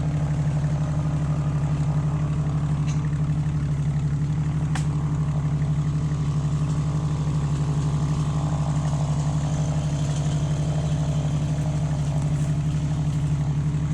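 Jeep Wrangler engine idling steadily, with a sharp click about five seconds in.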